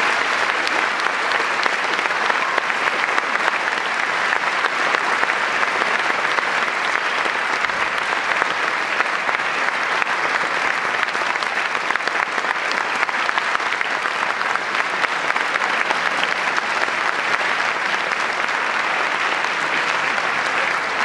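Audience applauding steadily at the close of a concert band's piece: dense, continuous clapping.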